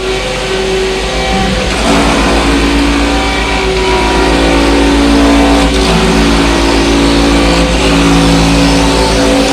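CNC wood lathe running, its motors whining at held pitches that step to new pitches every second or two over a pulsing low hum.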